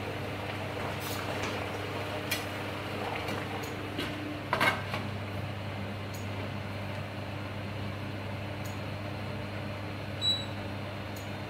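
Water steaming in a stainless steel steamer pot, a steady hiss over a low hum. About halfway through, the glass lid clinks as it is set on the steamer, and near the end there is one short high beep.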